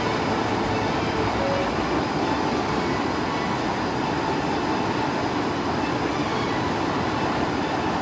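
Stream water rushing steadily over rocks in shallow rapids, a constant loud rush of white water.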